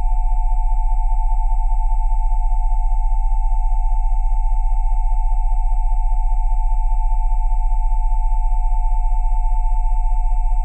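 Steady electronic sine tones at 727, 787 and 880 Hz sounding together over a deep 20 Hz tone, unchanging and with a fast, even pulsing in loudness.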